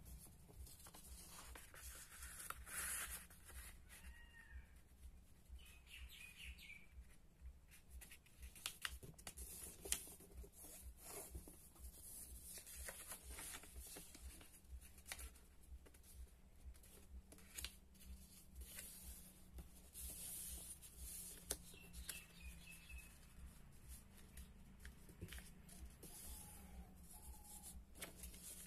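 Faint rustling and soft crinkling of a sheet of paper being handled and creased as it is folded, with scattered light taps, over a low steady hum.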